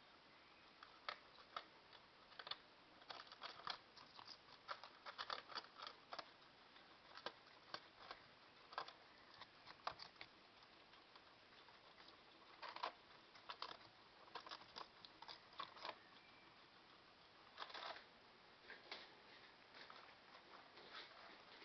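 Domestic guinea pigs eating fresh vegetables: quiet, irregular crunches and clicks of chewing and nibbling, often in quick clusters.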